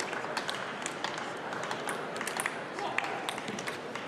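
Spectators in a sports hall between points: indistinct voices with scattered sharp clicks and a few claps.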